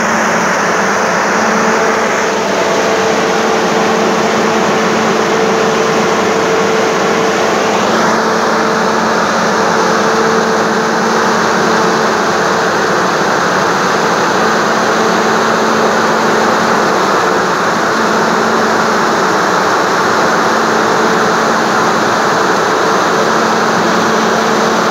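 Large axial fan of a corn (grain) dryer running: a loud, steady rush of air with a constant hum under it.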